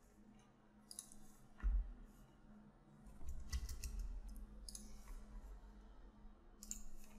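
Faint clicks of computer controls: a few single clicks, with a quick run of them about three and a half seconds in, over a low steady hum. A short low thump near two seconds in is the loudest sound, and a low rumble follows.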